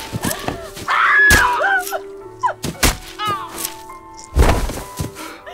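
Heavy thuds and blows of a struggle, four of them spread over a few seconds and the loudest near the end, over a film score with a held note.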